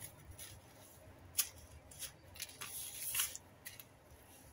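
Dry breading rustling and grating under fingers, with crumbs scraping against a stainless steel bowl as a piece of chicken is pressed and turned in them: irregular short scratchy rustles, one sharper about a second and a half in and a quick run of them a little past halfway.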